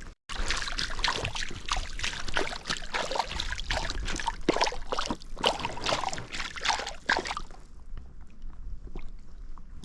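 Water splashing and sloshing in quick, irregular bursts from a hooked trout thrashing at the surface as it is landed. The splashing stops about seven and a half seconds in.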